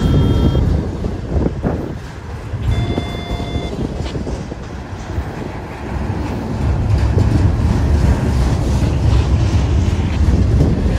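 Double-stack intermodal well cars rolling past close by, their wheels on the rails making a loud, uneven rumble. Two brief high tones cut through near the start and about three seconds in.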